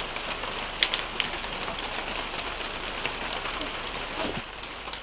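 Steady rain falling on a surface, an even hiss throughout, with a few sharp clicks about a second in and again near three seconds.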